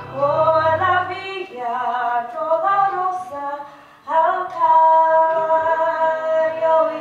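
A woman singing a slow solo melody into a microphone. The low accompaniment drops away about a second in, leaving her voice nearly alone. After a short break just before the middle, she comes back in and holds one long note.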